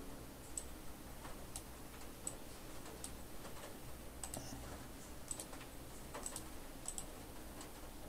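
Computer mouse clicking, short sharp clicks about once a second, some in quick pairs, as mask points are placed one by one.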